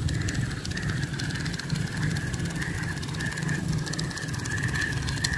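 Outdoor background noise: an uneven low rumble with a steady high-pitched drone over it.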